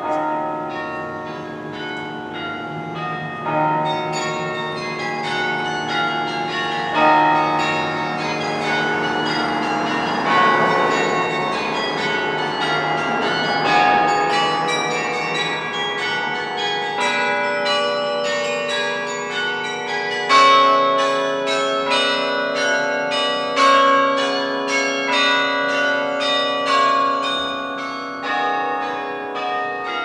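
Carillon of tuned bronze tower bells playing a piece, many notes a second, each bell ringing on and overlapping the next. A dense run of notes comes around the middle; after that, lower bells ring out long under the melody.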